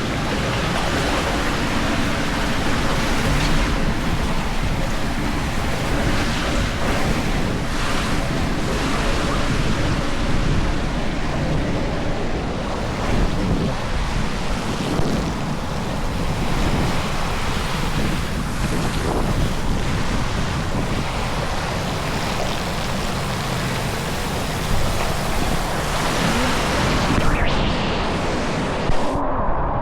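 Water rushing and wind buffeting the microphone as an inflatable tube rides down a water slide: a loud, continuous, wavering rush that turns suddenly duller just before the end.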